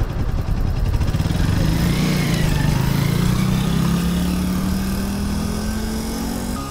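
Homemade go-kart's small engine running under throttle as the kart pulls away and drives. About a second and a half in, its note grows louder and rises, then climbs slowly in pitch as the kart gathers speed.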